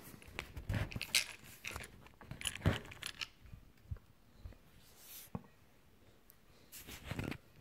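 Handling noise from a Predom Łucznik wz.70 spring-piston air pistol and its case: scattered light clicks, knocks and rustling as the pistol is picked up and turned in the hand.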